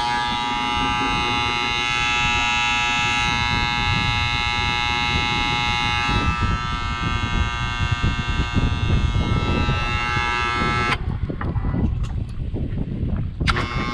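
Old boat-lift controller's motor contactors buzzing steadily while the lift is switched on; the buzz is harmless, the contactors work fine. The buzz cuts off about eleven seconds in and starts again near the end, over a steady low rumble.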